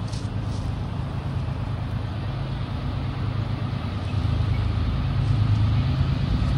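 Distant Norfolk Southern freight train's diesel locomotives approaching, a low steady engine rumble that grows gradually louder.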